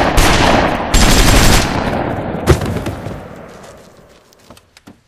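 Rapid automatic gunfire: a fast burst, a brief break, then a second burst about a second in, and one sharp, loud shot about two and a half seconds in. The echo then dies away over the last two seconds.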